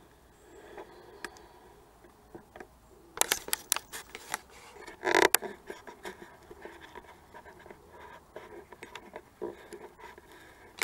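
Handling noise from a hand-held camera being picked up and held close: scratching, scraping and sharp clicks, loudest in a cluster a little over three to five seconds in, with quieter rustling before and after.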